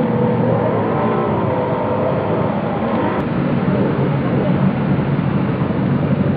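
Distant water-ski race boats' engines running at speed, a steady drone whose pitch wavers slowly up and down.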